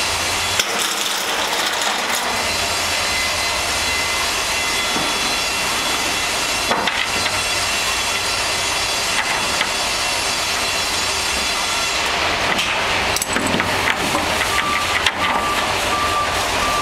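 Steady machine noise on a building site, with a few scattered clicks and a short run of knocks near the end. An evenly repeating electronic beep starts just before the end.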